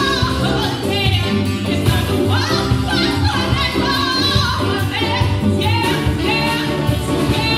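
Live band playing a song with singing over saxophone, keyboard, drum kit, bass guitar, electric guitar and congas.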